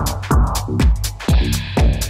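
Electronic dance music with a steady four-on-the-floor kick drum, a little over two beats a second, and ticking hi-hats between the beats.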